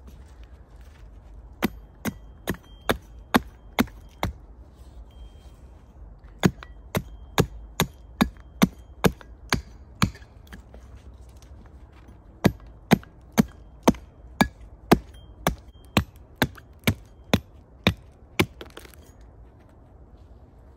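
Hatchet chopping small chips off a chunk of pinewood held against a log: sharp, evenly spaced chops about two or three a second, in three runs with short pauses between them.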